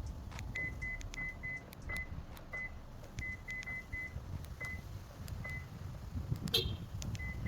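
A string of short, high electronic beeps at one pitch, coming irregularly about one or two a second, most with a light click. There is one louder, buzzier chirp about two-thirds of the way through, over a low rumble.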